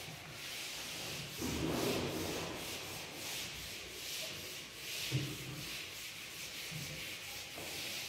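Handheld whiteboard eraser wiping marker off a whiteboard in quick back-and-forth strokes, a dry rubbing repeating about three times a second.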